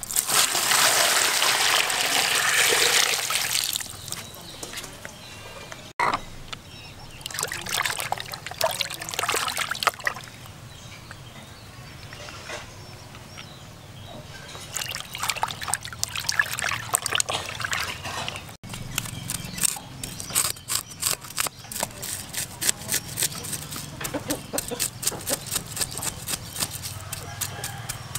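Water poured and splashing over a whole fish in a plastic basin, then hands sloshing and rubbing it clean in the water. Near the end, a cleaver scrapes the fish's skin on a wooden board in quick, repeated strokes, scaling it.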